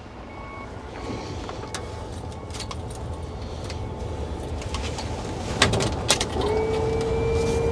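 A few clicks at the controls of a Polaris RZR side-by-side as someone tries to start it, then a steady tone held for about two seconds near the end, over a low rumble; the engine does not start.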